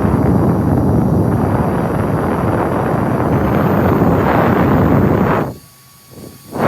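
Diveblues Turbo handheld fan running at high speed: a loud, steady rush of air. It drops away for about a second near the end, then comes back.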